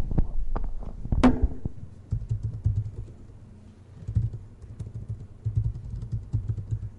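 Typing on a computer keyboard: a run of irregular key clicks, with one louder clack about a second in.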